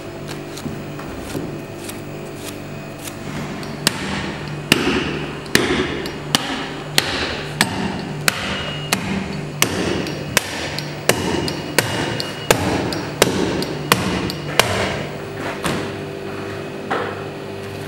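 A cleaver chopping lamb on a wooden chopping block: a run of sharp chops, about one and a half a second, starting about four seconds in and stopping near fifteen seconds, some leaving a brief metallic ring.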